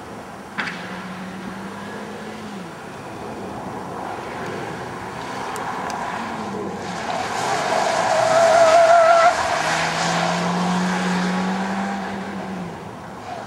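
Subaru Legacy wagon driven hard through a cone course: the engine drones steadily, then the tyres squeal with a wavering tone through a turn about eight seconds in, the loudest part, before the engine drones again. A short click sounds just after the start.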